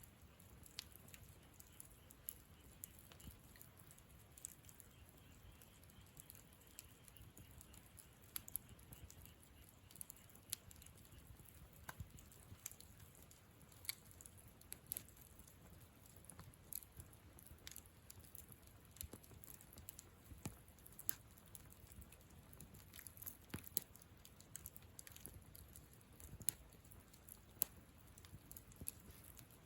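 Wood campfire crackling: irregular sharp pops and snaps from the burning wood over a faint low rumble.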